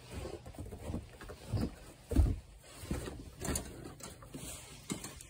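Footsteps crunching and thumping in shallow snow, an uneven run of dull treads.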